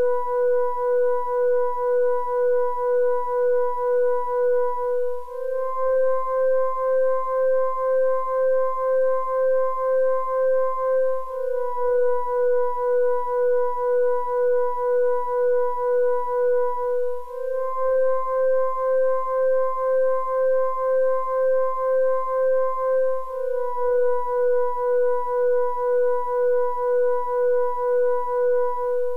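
Dark ambient synthesizer drone: a single held note with a few overtones, pulsing about twice a second. Every six seconds or so it steps up slightly to a neighbouring note and then back down.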